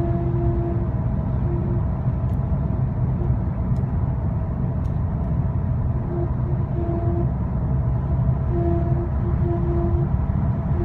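2010 Skoda Octavia 1.6 CR TDI driving at speed: steady road and engine rumble with a whining tone that comes and goes on its own. The whine is present at the start, drops out within the first second, and returns around six seconds in and again near nine seconds. It appears above about 60 mph whether or not the pedals are touched, and its cause is unknown.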